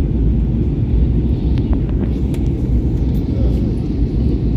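Cabin noise inside an Airbus A320neo in flight on its way in to land: a steady, deep rumble of airflow and engines.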